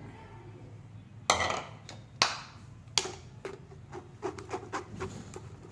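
Three sharp knocks, about a second apart, as a mixer jar is tapped against a strainer to empty ground curry leaf paste, followed by lighter clicks and scraping.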